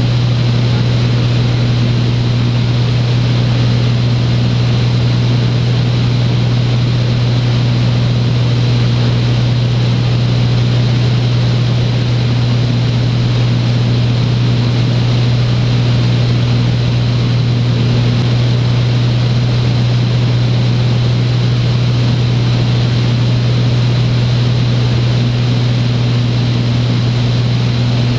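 Beechcraft Bonanza A36 in cruise flight: the piston engine and propeller make a loud, steady drone with a strong low hum and a faint high whine over it.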